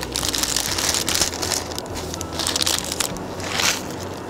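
Instant ramen noodles going into a pot of water at a full boil on a cassette gas stove, making three bursts of crisp, hissing noise (a long one first, then two short ones) over the stove burner's steady low rumble.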